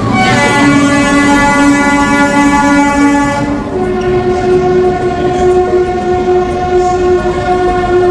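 Train horn sounding in long held blasts: one steady note for about three seconds, then a slightly higher note that holds on without a break.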